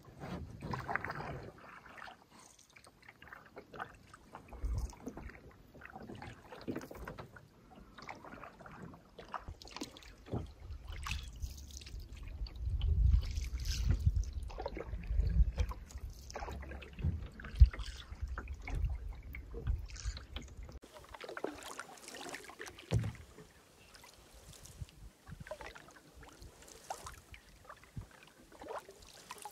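Canoe paddling on a lake: paddle strokes dipping and pulling through the water, with small splashes and a few sharp clicks. A low rumble runs through the middle stretch.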